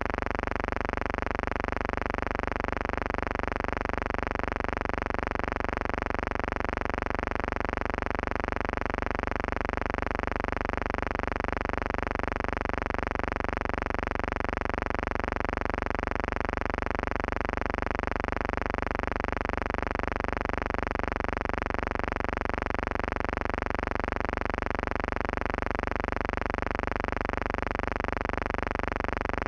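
A steady, unchanging buzzing hum with many overtones, and nothing else happening.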